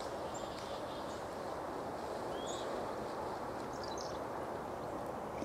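Steady outdoor background hiss with a few faint, short, high bird chirps scattered through it.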